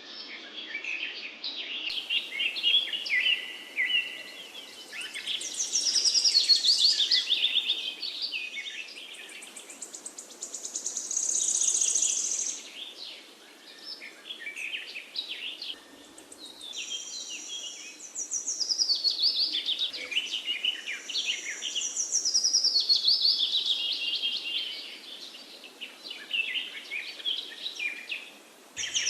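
Songbirds singing and calling, a busy overlapping chorus of chirps, trills and high whistles that rises and falls in loudness.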